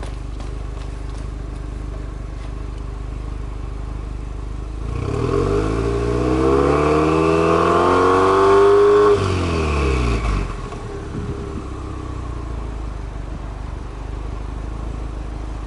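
Subaru Legacy 2.0GT spec B's turbocharged 2.0-litre flat-four (boxer) engine, heard at the twin exhausts. It idles steadily, is revved once in neutral, climbing over about four seconds, then drops off sharply when the throttle is released and settles back to idle.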